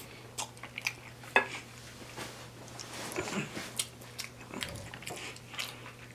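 Close-miked chewing and mouth sounds of a man eating cheesy garlic bread, with scattered small wet clicks and one sharper click about a second and a half in. A faint steady low hum sits underneath.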